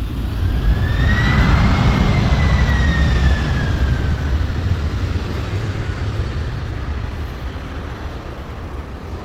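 Jet engine noise from a passing aircraft: a loud low rumble with a whine that rises, peaks about two seconds in and then falls in pitch, the rumble slowly fading.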